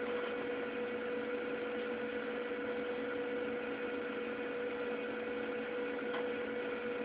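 Steady electrical hum with hiss, a constant mid-pitched tone over even background noise: room tone and recording noise, with nothing else happening.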